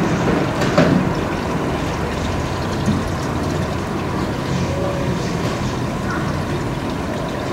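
Steady low background rumble with faint distant voices now and then.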